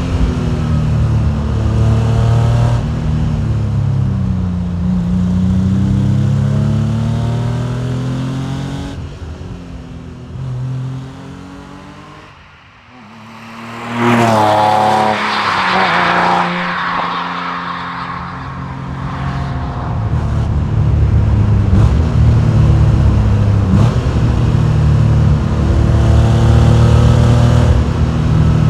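Porsche 993 Carrera's air-cooled, naturally aspirated flat-six driving, its pitch falling and rising with the throttle. Around the middle it goes quiet on a lift-off, then comes back suddenly and loud at about fourteen seconds with a raspy rise in revs under hard acceleration, and runs loud and steady after that.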